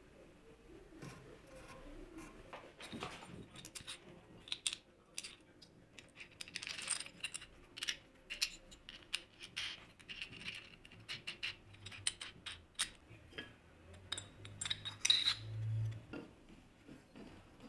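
Small metal hardware, bolts, washers and wing nuts, clinking and tapping as they are handled and fitted to a wooden chisel-sharpening jig, in a scatter of sharp clicks. A brief low hum comes in about three-quarters of the way through.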